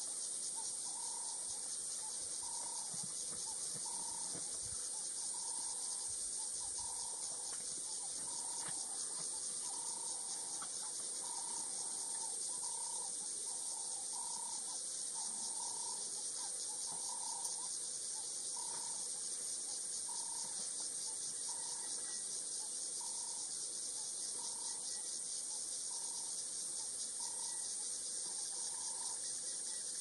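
Steady, high-pitched chirring of insects in dry bush, unbroken throughout. Under it, a faint short low note repeats a little more than once a second.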